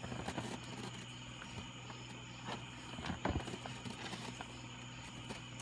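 Scattered light clicks and knocks of hands handling gear, over a steady low hum.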